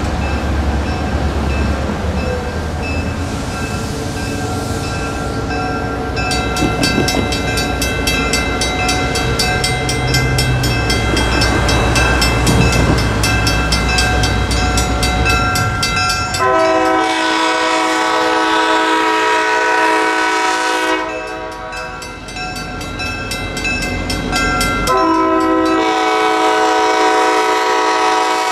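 An approaching locomotive sounds a chime warning chord for a grade crossing: one long blast starting about 16 seconds in and lasting about four seconds, then a second long blast near the end. Before the first blast there is a low running rumble and a bell ringing rapidly.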